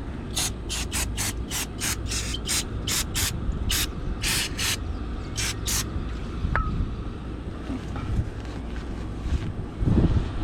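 A hand ratchet's quick return strokes: about fifteen short rasping buzzes, irregularly spaced over the first six seconds, then a few faint clicks, over a steady low hum.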